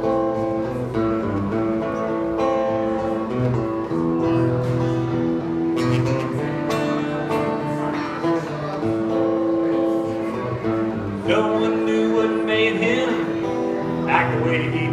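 Acoustic guitar strummed through an instrumental break of a live song, with a man's singing voice coming back in about eleven seconds in.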